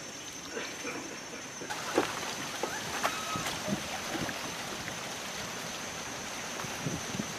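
Water splashing and trickling around a small wooden rowboat as it is rowed, with a few short, sharp splashes and knocks scattered through, over a steady high-pitched tone.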